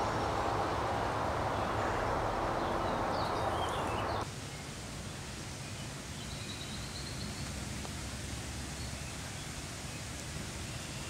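Outdoor woodland ambience: a steady rushing noise that cuts off abruptly about four seconds in, giving way to a quieter background with a few faint, high bird calls.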